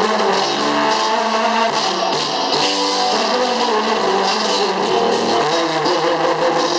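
Live Greek pop song played by a band: a man singing into a microphone over plucked strings and keyboard.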